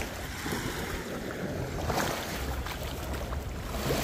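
Small lake waves lapping in shallow water at the shoreline, with wind rumbling on the microphone, the rumble stronger in the second half.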